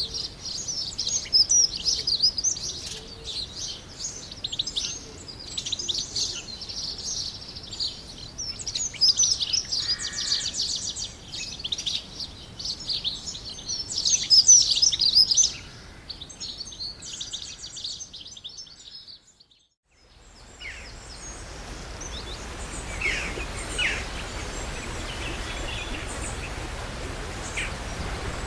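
A dense chorus of small songbirds chirping and trilling, which fades out after about eighteen seconds. A new ambience then begins: a steady rushing noise with a few scattered bird calls.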